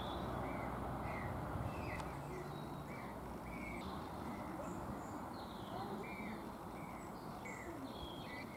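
Small birds chirping, short repeated chirps about twice a second, over a steady low background rumble.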